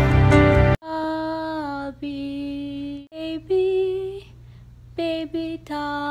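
Background music cuts off abruptly under a second in. Then a woman sings a slow, lullaby-like tune unaccompanied, with long held notes and short pauses between phrases.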